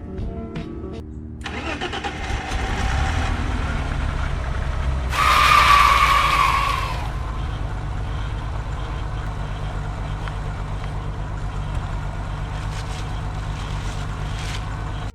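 BMW E30's engine starting and running after new fuel hoses: it catches about a second and a half in, surges louder for about two seconds around the five-second mark, then settles into a steady idle.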